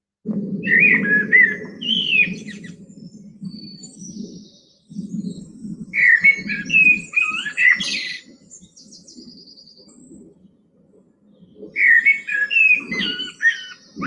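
Common blackbird singing: three fluted, warbling phrases a few seconds apart, the first two followed by thin, high twittering notes.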